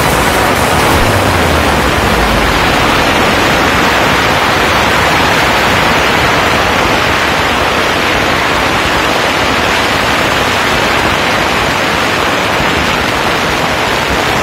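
Firecrackers going off in a dense, continuous crackle so fast that the reports blur into a steady hiss.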